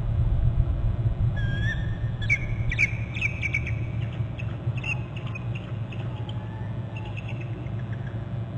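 Adult female bald eagle calling: a drawn-out whistled note, then a quick run of high chittering notes, then fainter scattered notes. The calls sound like food calls. A steady low rumble runs underneath.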